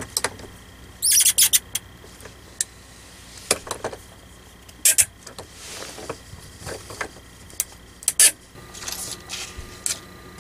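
Pliers gripping and turning plastic compression fittings on a water heater's supply lines, which are being tightened to stop a slow leak. Short clicks and scrapes come at irregular intervals.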